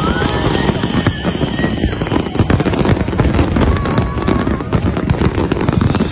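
Large fireworks display: a dense, unbroken barrage of crackling bangs from many shells bursting at once.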